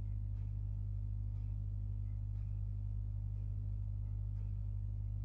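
A steady low hum, unchanging throughout, with no speech.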